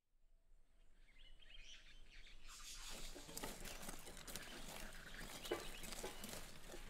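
Birds chirping over outdoor ambience that fades in from silence, joined from about two and a half seconds in by the irregular scraping and chopping of short-handled hand hoes working soil.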